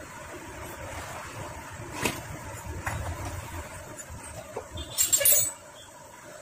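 Metal hand tools clicking and clinking against a Bajaj Pulsar 150 engine during assembly: a few single clicks, then a quick rattle of metal clinks about five seconds in, the loudest sound.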